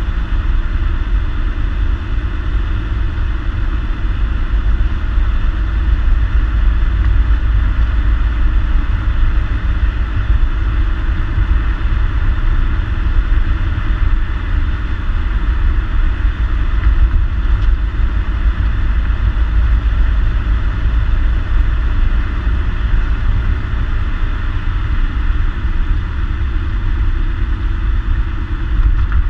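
2014 Ford Mustang's 3.7-litre V6 running through its stock exhaust while driving, a steady low drone with no revving.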